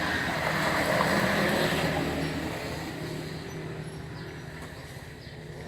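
A motor vehicle passing by, a broad engine-and-road noise that grows louder to a peak about a second or two in, then slowly fades away.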